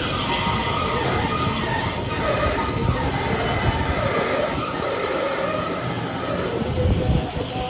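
Large engine lathe running under load while facing a big steel plate: the machine and its drive run steadily as the cutting tool scrapes across the spinning steel face, with a wavering metallic whine over the mechanical noise.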